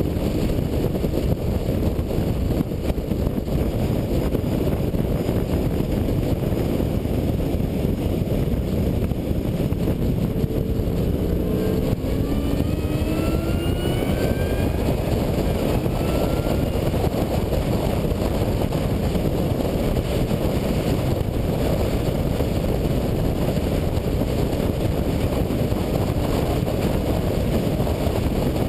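2003 Mustang SVT Cobra's supercharged V8, with its MAC exhaust, running hard on track under a heavy rush of wind and road noise. Its pitch climbs from about 11 to 16 seconds in as the car accelerates.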